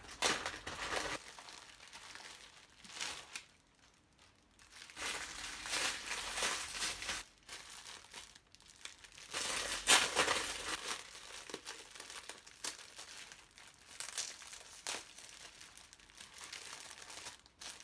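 Packaging being handled and opened by hand, crinkling and rustling in irregular bursts, loudest about ten seconds in.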